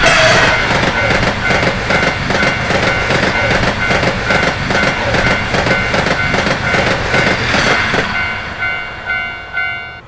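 Japanese railroad crossing bell ringing about twice a second as a train passes over the crossing, its wheels clattering on the rails. The train noise falls away about eight seconds in, leaving the bell, which stops near the end.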